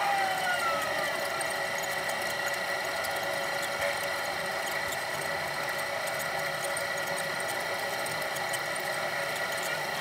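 Electric potter's wheel motor running with a steady high whine as the wheel head spins, with a few short gliding chirps in the first second.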